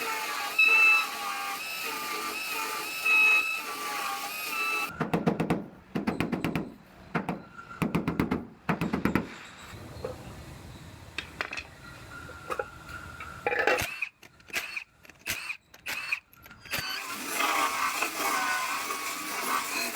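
A power tool worked against the truck bed's sheet metal in a series of short, rapid, rattling bursts with pauses between them, with background music before and after.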